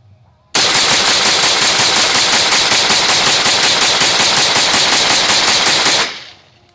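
Carbon-fibre AR-15 rifle fired semi-automatic in a fast, unbroken string of about six shots a second for about five and a half seconds, then stopping abruptly: a rapid magazine dump.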